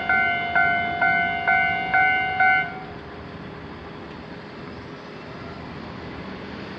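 Japanese level-crossing warning bell ringing in a steady two-strikes-a-second rhythm, each strike fading quickly, then cutting off suddenly a little under three seconds in as the crossing clears after the train.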